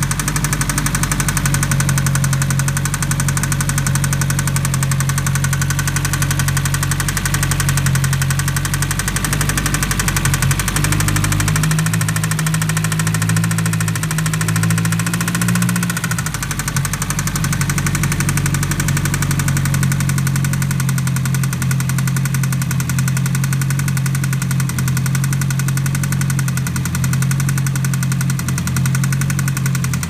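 Mitsubishi Lancer Evolution IX's turbocharged MIVEC four-cylinder engine idling with a loud noise from the cylinder head on the driver-side intake side. The noise used to come in around 4000 rpm and is now present at idle, and the owner suspects a lifter.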